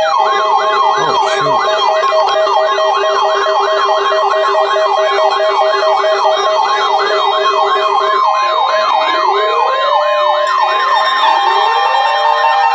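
Electronic siren yelping: a fast rising-and-falling sweep about three times a second over steady held electronic tones, with slower rising wail sweeps joining about eight seconds in.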